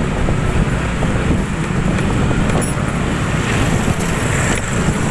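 Motorcycle running steadily at riding speed, heard from the rider's seat, with wind and road noise on the microphone.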